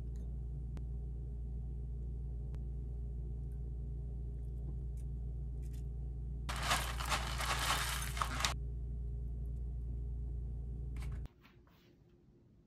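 Light taps and clicks of cut fruit being set into a bowl of yogurt over a steady low hum, with about two seconds of loud crinkling rustle in the middle. The hum cuts off suddenly near the end.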